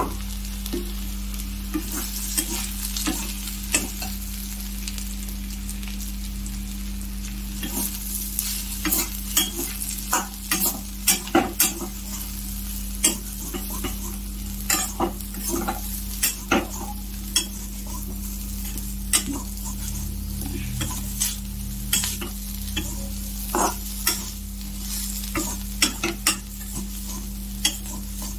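Soya chunks, potato, onion and green chillies sizzling in a kadai while a spatula stirs and scrapes them against the pan, giving a steady frying hiss broken by sharp scrapes and clicks. The clicks come thick and fast from about eight seconds in.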